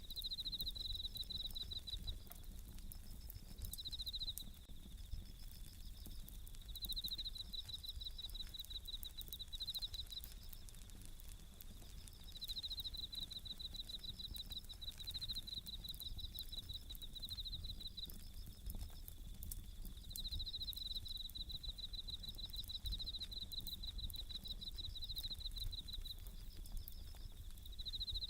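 Japanese bell crickets (suzumushi) singing in repeated pulsed trills, phrase after phrase, over a campfire crackling with small sharp pops and a low steady burning rumble.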